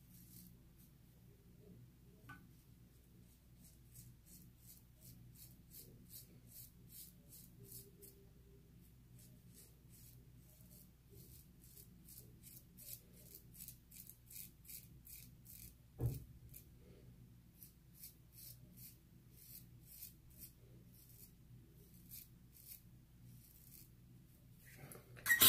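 Kamisori-style shavette with a Feather Artist Club blade cutting lathered stubble: a long series of short, faint scraping strokes at about two a second. One louder knock about sixteen seconds in.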